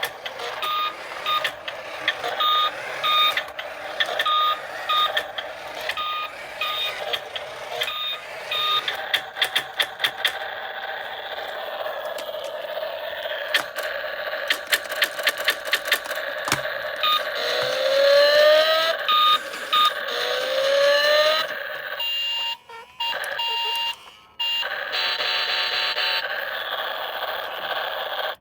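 Electronic beeping from a toy's sound effects: a short beep repeats about every two-thirds of a second, then comes a fast run of clicks, and later a few rising chirps and more steady beeps.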